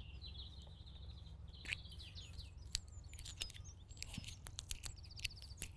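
Faint birdsong: a small songbird singing short, high trilled phrases several times. Scattered faint clicks and ticks run through it.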